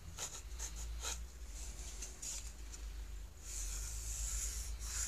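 Pencil scratching on a wooden board while marking a cutting line: several short strokes, then a longer drawn stroke in the second half.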